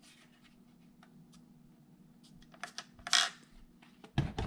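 Small plastic clicks and handling noise from the RC radio transmitter being turned over in the hands, with a louder rustle about three seconds in and a low thump near the end.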